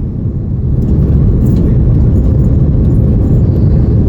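Airliner cabin noise inside an Airbus A330-900neo on final approach: a steady low rumble of engines and airflow with the landing gear down and flaps extended, growing louder about a second in.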